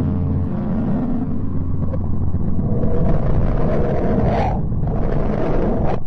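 Space-sound audio presented as planet Mercury's electromagnetic waves converted into sound: a continuous deep rumble under a low steady hum that fades out about halfway through. From about three seconds in the rumble swells, with a brief hissing surge near the end.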